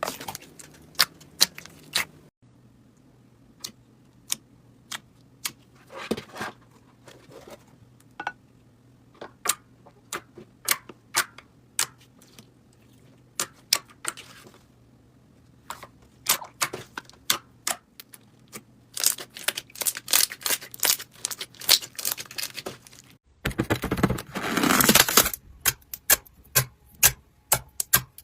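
Slime being squeezed and pulled by hand, making a string of sticky clicks and pops at an uneven pace, with a denser stretch of crackling a little before the end.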